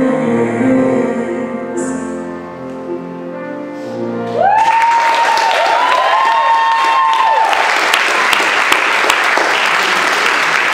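The last sustained chords of a song's backing music fade out, then about four and a half seconds in an audience breaks into steady applause, with a few whooping cheers over its first few seconds.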